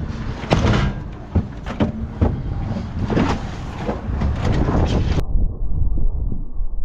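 Wind buffeting the microphone as a heavy low rumble, with scattered knocks and clatter over it. A little after five seconds the sound turns abruptly muffled, leaving only the low rumble.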